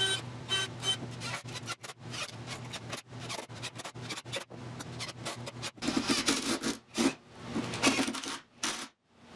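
Hand work on the wooden frame: a dense, irregular run of rubbing and scraping strokes, louder around six and eight seconds in.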